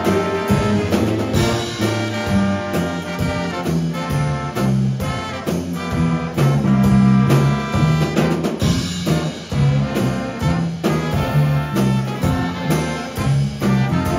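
School jazz big band playing live: saxophones and trumpets together in full ensemble over a drum kit keeping a steady beat.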